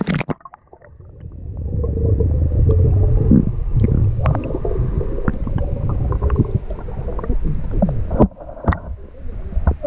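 Muffled underwater sound with the camera submerged: a low, gurgling rumble of water and bubbles with scattered clicks, then water splashing as the camera comes back up through the surface near the end.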